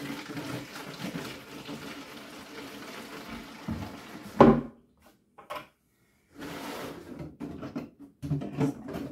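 Liquid pouring steadily from a plastic bucket into a plastic gallon jug for about four seconds, then a loud knock as the bucket is set down. A few short knocks and rustles of handling follow near the end.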